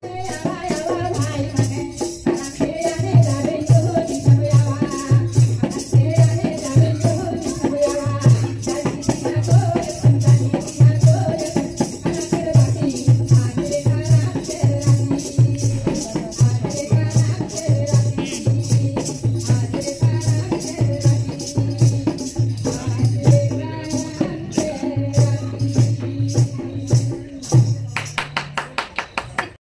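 Jhumur folk dance music: a singing voice over a steady low drum beat and a dense shaking rattle, the rattling growing faster near the end.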